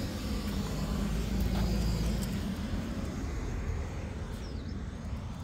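A car passing on the street, its low engine and tyre rumble swelling about a second in and fading away.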